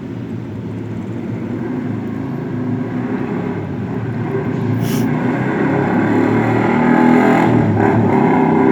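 A motor running, its low hum growing steadily louder, with one short sharp click about five seconds in.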